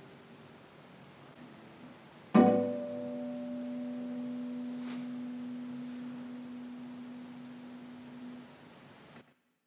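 Nylon-string classical guitar: the last notes fade, then a final chord is plucked about two seconds in and left to ring, dying away slowly over about six seconds as the piece closes.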